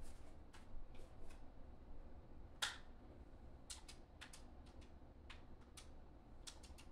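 Faint, sharp clicks and ticks at irregular intervals, with one louder click about two and a half seconds in, over a low steady hum.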